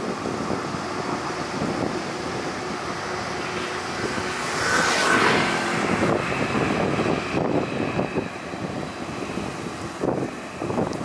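New Taipei Ankeng light rail train running through on a test run, heard under heavy wind buffeting the microphone. About five seconds in a brief, louder high sound rises over the noise, followed by faint steady whines for a couple of seconds.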